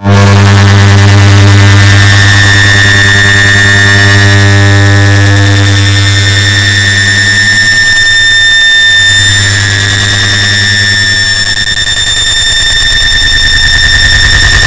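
Air conditioner start-up sound stacked on itself many times and distorted into a very loud steady drone: a deep hum with a high whine above it, starting suddenly after a moment of silence.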